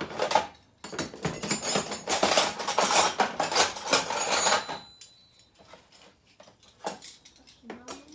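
Small metal tools and parts clinking and rattling as someone rummages through a box, dense for several seconds, then a few scattered clicks near the end.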